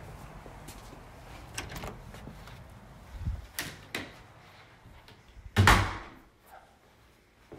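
A few scattered clicks and knocks over faint hiss, then a loud, heavy thump about five and a half seconds in that dies away within about half a second.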